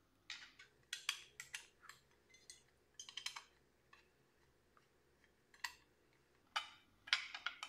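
Light metallic clicks and clinks of a T-handle 3 mm Allen key turning bolts in a metal tail-tidy bracket, coming in small scattered groups with a louder cluster near the end.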